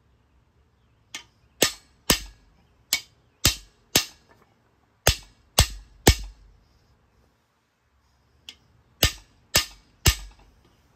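Hammer blows on the driver rod of a cam bearing installer, metal on metal, driving a new cam bearing into its bore in a Ford 302 small-block V8. About a dozen sharp strikes, each with a short ring, come in three runs of about two a second with pauses between.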